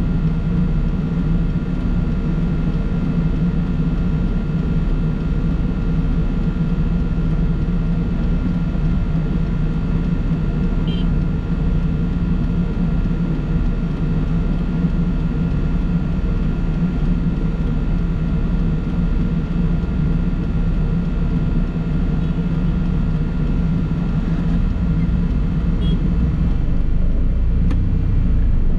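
Steady drone of a vehicle's engine and road noise during a drive, unchanging in level throughout.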